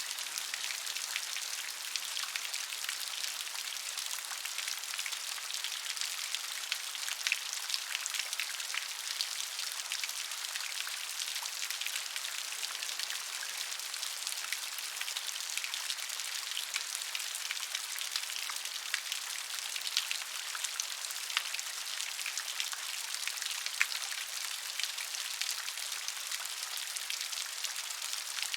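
Steady rain, a dense patter of drops hitting a surface, with scattered louder individual drop ticks.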